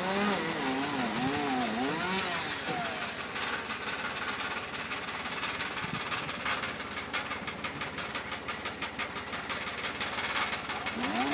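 Gas chainsaw cutting into a tree trunk. Its engine pitch wavers up and down under load in the first few seconds, then settles into a steadier noisy buzz with a fast pulsing rhythm.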